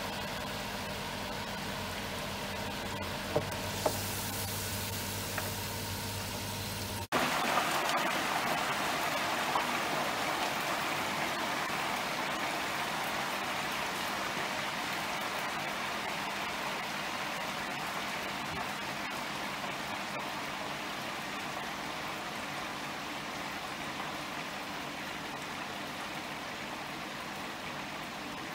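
Potato chips deep-frying in hot oil: a steady bubbling sizzle with a low electrical hum under it and two small clicks about three to four seconds in. About seven seconds in the sound changes abruptly to a louder, hissing sizzle that slowly fades.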